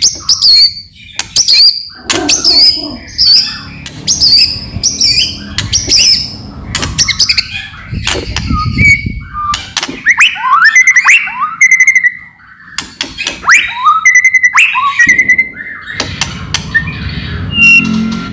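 White-rumped shama (murai batu) singing loudly: sharp rattling clicks mixed with repeated short high notes, then quick rising and falling whistled phrases from about halfway through.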